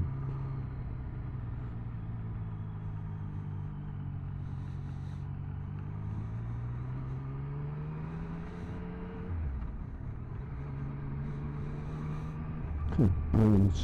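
Motorcycle engine heard from the rider's helmet microphone while riding. The engine note climbs steadily for several seconds as the bike accelerates, drops suddenly about nine seconds in, like a gear change or roll-off, then holds steady.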